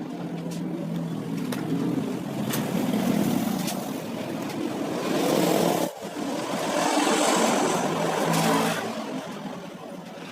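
Motor vehicle traffic with a low engine hum, swelling twice as vehicles pass, and a few faint clicks.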